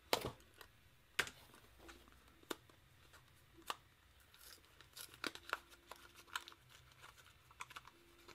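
A small cardboard box being pried and torn open by hand. Scattered sharp clicks and crackles: the loudest right at the start and about a second in, then a quick run of small crackles around five to six seconds in.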